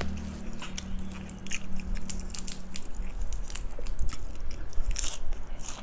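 Close-miked eating sounds: someone biting and chewing crunchy food from a spicy cucumber salad and pork-crackling meal, with many crisp cracks and smacks. A low steady hum stops about three seconds in.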